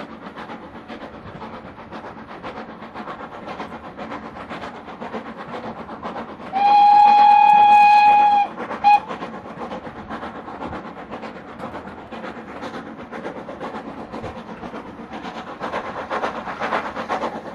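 Steam locomotive whistle: one long blast of about two seconds, then a short pip. Under it runs the steady rumble and clatter of the train on the rails, heard from inside a carriage.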